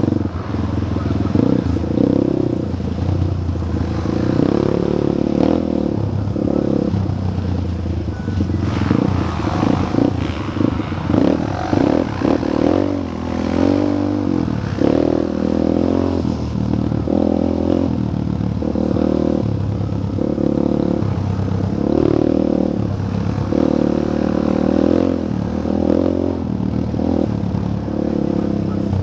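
Single-cylinder off-road engine of the machine carrying the camera, running along a dirt trail, its revs stepping up and down about once a second as the throttle is worked.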